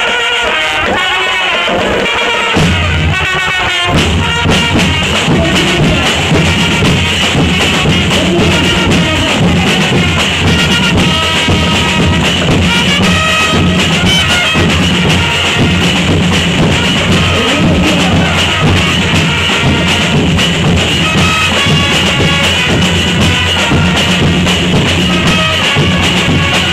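Fanfare marching band playing loud music driven by heavy drums and percussion, with a steady deep bass and beat setting in a couple of seconds in.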